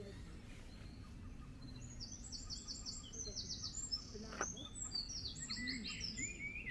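Dawn chorus of songbirds: fast trills of rapidly repeated high notes about two seconds in and again near five seconds, over a steady low background rumble. A single short click comes a little past four seconds.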